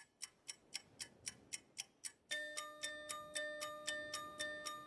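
Background music: a clock-like ticking beat, about four ticks a second, joined about two seconds in by held sustained notes.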